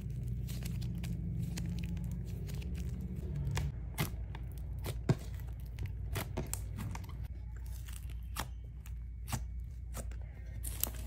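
Hands kneading and pressing glossy white-glue slime with blue soft clay worked into it, making irregular sticky clicks and pops over a low steady hum.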